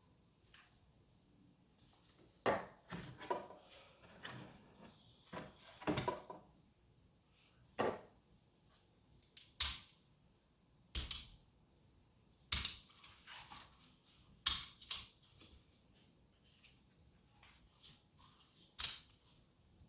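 Hard objects being handled and set down during unboxing: a dozen or so separate sharp clicks and knocks, spread out with quiet gaps between them.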